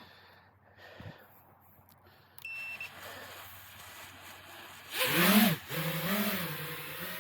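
FPV quadcopter's motors throttling up: a short beep, then the motor whine swells and falls twice in quick throttle punches and settles into a steady hum.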